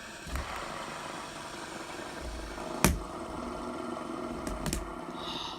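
Fidget spinners whirring steadily as they spin in a battle, with one sharp click about three seconds in and two lighter ticks near the end.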